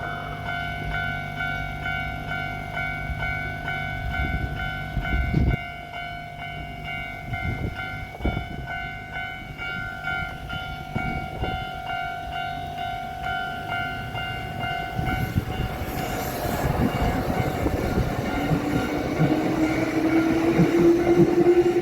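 Japanese level-crossing warning bell ringing in a fast repeating pattern, about two strikes a second. From about 16 seconds in, an electric train runs over the crossing, its rumble and wheel clatter growing louder, with a rising whine near the end.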